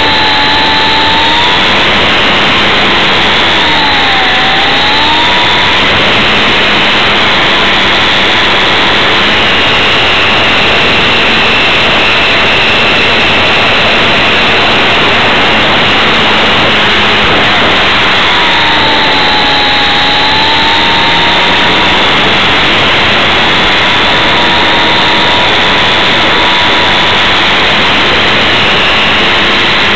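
RC model airplane's motor and propeller heard from a camera on board: a loud, steady whine over rushing noise. Its pitch dips and climbs back about four seconds in, and again around twenty seconds in.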